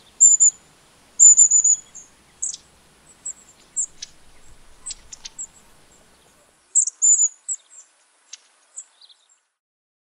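Long-tailed tits calling: bouts of very high, thin whistled notes, some drawn out into short trills, mixed with brief sharp calls. The calling stops shortly before the end.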